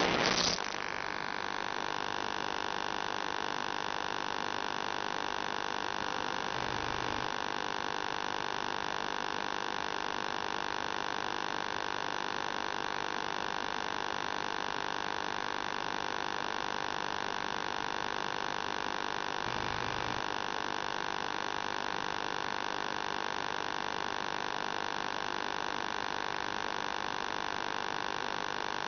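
Steady electronic hum with several even tones on the audio of an analog FPV video link, the crashed quad's motors stopped; a burst of loud static cuts off about half a second in.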